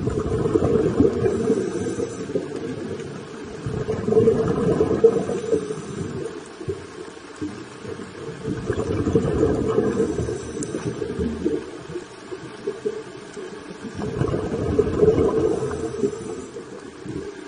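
Muffled underwater rumble of a scuba diver's exhaled bubbles from the regulator, heard through an underwater camera housing, swelling and fading every four to five seconds in step with the breathing.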